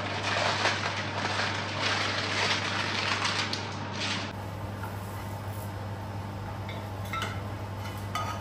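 Air fryer basket and food being handled, with loud clattering and scraping for about four seconds. It then turns quieter, with a steady low hum and a few light clinks of a metal spatula against a frying pan, the clearest near the end.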